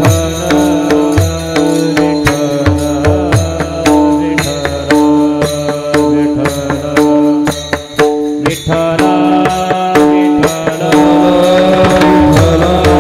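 Warkari kirtan music, mostly instrumental: a pakhawaj barrel drum plays strokes with deep bass notes that drop in pitch, small hand cymbals (taal) keep time, and a harmonium holds steady notes.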